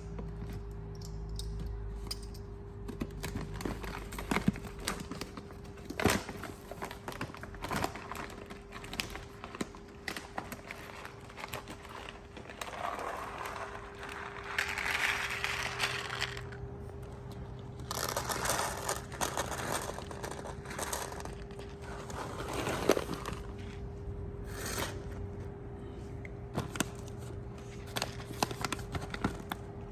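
Cat food being got ready: packaging crinkling and tearing, with scattered clicks and knocks and a few longer stretches of rustling in the middle. A faint steady hum runs underneath.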